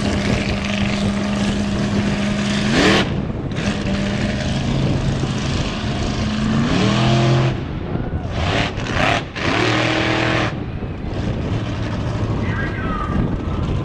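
Monster truck engines running loud on the track. One holds a steady note, then revs up sharply about three seconds in, and there are two more hard rising revs later on.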